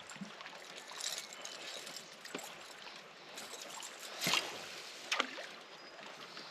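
Canoe being paddled on calm water: water trickling and dripping off the paddle, with a few short splashes or knocks, the loudest about four seconds in.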